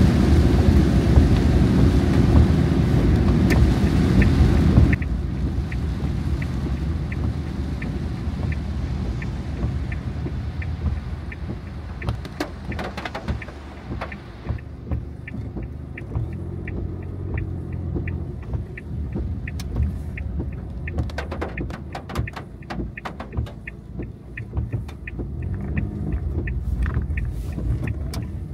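Inside a car's cabin in a downpour: heavy rain and road noise, loud for about the first five seconds, drop sharply to a steady low rumble. Through the rest, a turn-signal indicator ticks evenly, about one and a half ticks a second, with scattered sharp taps of rain on the car.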